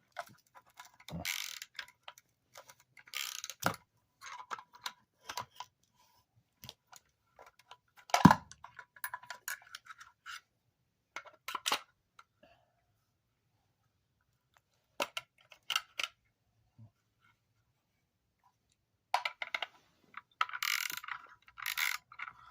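Hand tools clicking, clinking and scraping against a salvaged electric motor's casing as someone tries to pry it apart. There is one sharp knock about eight seconds in, a quiet stretch in the middle, and denser scraping near the end.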